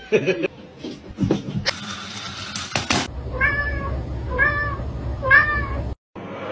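Domestic cat meowing three times, about a second apart, each call rising and falling. Before the meows come some short sharp sounds and about a second of rushing noise.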